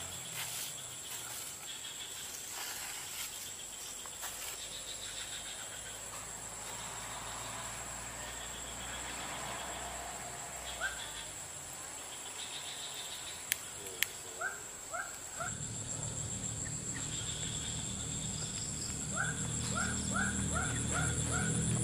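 Insects droning steadily, a continuous high-pitched buzz over a quiet rural swamp ambience. Short series of rising chirps come in after the middle, and a low hum enters about two-thirds of the way through.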